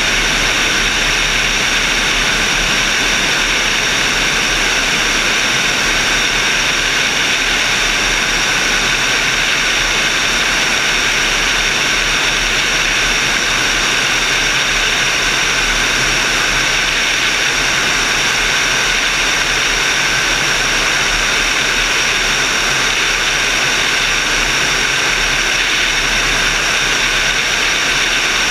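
Steady in-flight noise of air rushing past a motorglider's wing-mounted camera, an even hiss with steady high whining tones that do not change.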